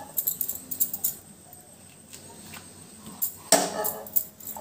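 A spoon tapping and scraping lumps of butter into a non-stick pan: light clicks near the start, then a louder run of scrapes and knocks about three and a half seconds in.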